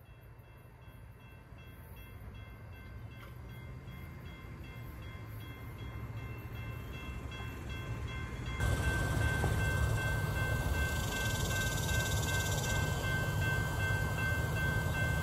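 Trinity Railway Express commuter train running on the tracks: a low rumble that grows steadily louder. About eight and a half seconds in it turns abruptly louder, with a steady high tone over the rumble as the train passes close by.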